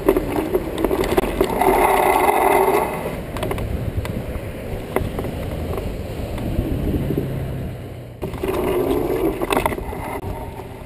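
Cars passing twice, each swelling and fading over a second or two, over a steady wind-like rush with a few faint clicks.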